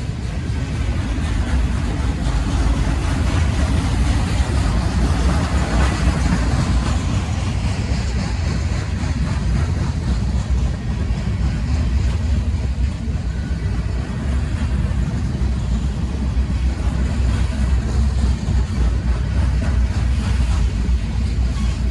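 Freight train flatcars rolling steadily past: a continuous low rumble of steel wheels on the rails with a rushing clatter above it.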